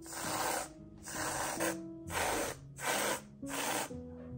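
Aerosol can of whipped cream spraying in about five short spurts, one dollop at a time.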